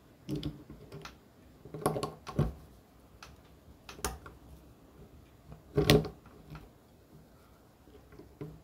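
Scattered clicks and knocks of small parts being handled and fitted by hand while a three-wheeler brake master cylinder is assembled, the loudest knock about six seconds in.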